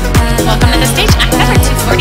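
Electronic dance music with a steady, punchy kick drum at about two beats a second under bass and synth melody.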